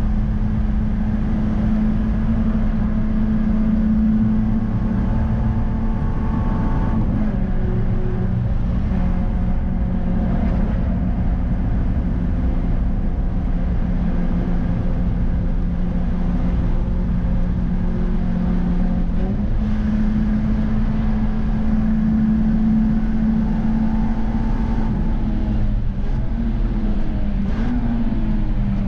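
Peugeot 306 GTi6's 2.0-litre sixteen-valve four-cylinder engine heard from inside its stripped cabin, held at high revs under hard driving over steady tyre and road rumble. Its pitch drops about seven seconds in, climbs again around twenty seconds in, and wavers near the end as the car slows.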